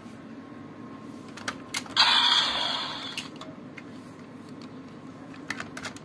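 Plastic clicks and snaps as raise buckles are pulled from and slotted into a Bandai DX Desire Driver toy belt, with a short loud burst of noise about two seconds in and a quick run of clicks near the end, over a low steady hum.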